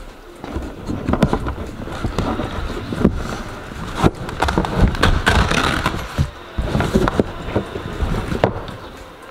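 Clothing rubbing and brushing against a handheld phone's microphone, with irregular knocks and bumps as the phone is moved around.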